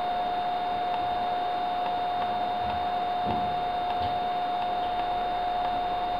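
A few faint, spaced-out clicks of a laptop's touchpad buttons over a steady high-pitched whine and hiss.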